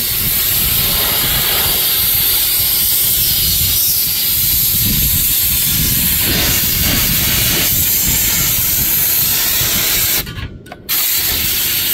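Compressed-air blow gun hissing steadily as it blows debris out from between the radiator and the coolers in front of it. The air cuts off twice, briefly, near the end.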